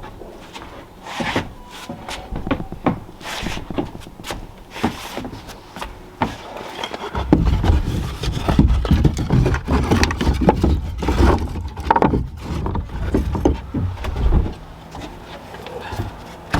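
Pieces of firewood knocking and rubbing against each other in a string of short, irregular knocks. From about seven seconds a steady low rumble joins in and stops near the end.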